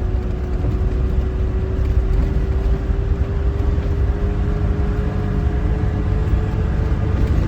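Land Rover's engine and drivetrain running in first gear, high range, while the vehicle rolls down a hill on the engine, with a steady whine that rises slowly in pitch as it gathers speed over dense low road noise.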